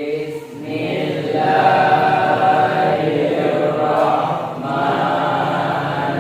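A group of voices reciting a prayer aloud together in a slow, drawn-out unison chant.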